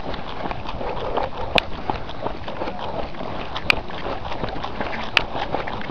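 Trail runners' footfalls on a dirt track, a rhythmic run of strides, with three sharp clicks spread through it.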